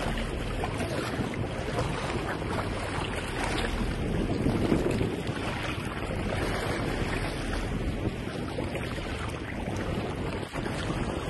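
Wind buffeting the microphone over a steady rush of sea water along the side of a moving boat.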